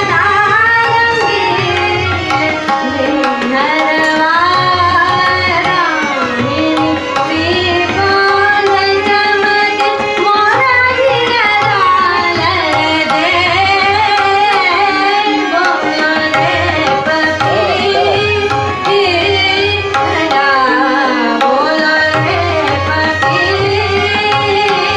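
A woman singing a Hindustani classical bandish in long, gliding melodic phrases, accompanied by tabla playing a steady rhythmic pattern underneath.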